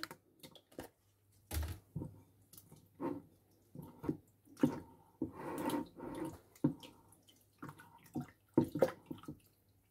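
A hand stirring and squeezing yeast in warm water in a glass bowl, dissolving it: small splashes and sloshes that come and go.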